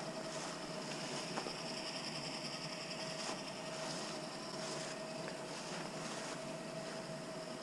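Winch running steadily as it hauls the tilting antenna tower up on its rope: a steady mechanical hum with a constant whine.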